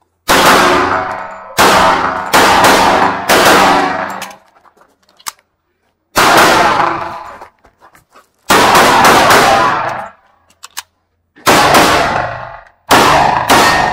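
1911 .45 ACP pistol firing strings of shots in quick groups, with pauses of a second or two between the groups. Each shot is loud, with a ringing tail after it.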